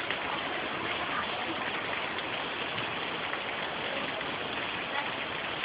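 Heavy rain pouring down steadily on palms and garden plants, a dense, even hiss with no let-up.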